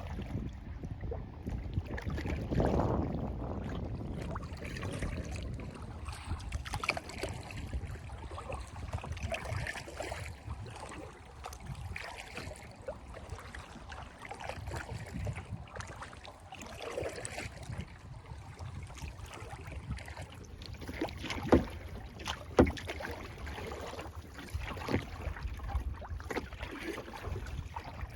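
Kayak paddling on a lake: paddle blades dipping and splashing, with water dripping, over a low rumble. Two sharp knocks, the loudest sounds, come about two-thirds of the way through.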